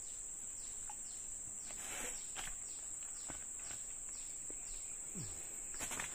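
Steady high-pitched trill of insects, with a run of short falling chirps over it and a few faint clicks.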